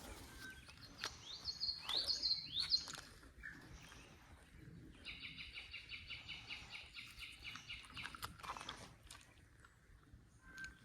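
Songbirds singing: a few quick sweeping notes in the first three seconds, then a rapid, even trill lasting about three seconds in the middle.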